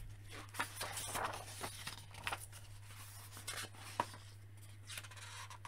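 Pages of a large hardcover book being opened and turned by hand: faint paper rustles and light taps, quieter in the last second or so.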